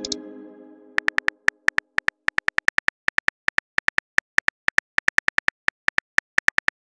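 Texting-app keyboard typing sounds: a fast run of short, pitched clicks, about five a second, as a message is typed letter by letter. Before the clicks, an incoming-message chime is fading out.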